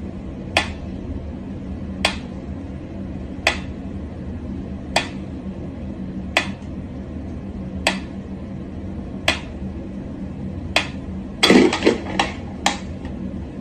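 Mechanical pendulum metronome ticking slowly, one sharp tick about every second and a half. Near the end a louder clatter of several quick knocks breaks in.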